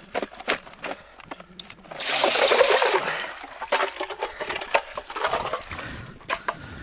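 Ice auger on a cordless drill boring through lake ice: crunching and crackling of ice chips as it cuts, with a louder rushing, scraping stretch about two seconds in that lasts about a second.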